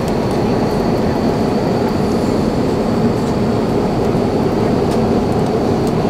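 Steady roar of an airliner cabin at cruise, engine and airflow noise unbroken, with a thin high whine over it.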